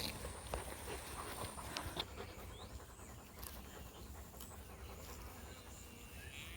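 A dog panting faintly, with small scattered clicks and a low rumble underneath.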